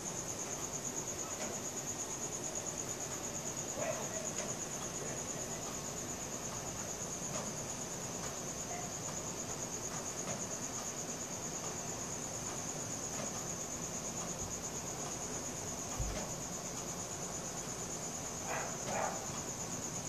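Crickets chirping in a steady, high-pitched continuous trill. A few short, fainter sounds stand out briefly, once about four seconds in and twice near the end.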